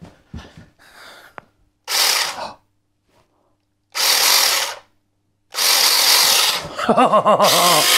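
Bei & Hong 6-inch 21-volt cordless mini chainsaw running free in the air, not cutting. It is triggered in three bursts: a short one about two seconds in, another about four seconds in, then a longer run from about five and a half seconds that keeps going.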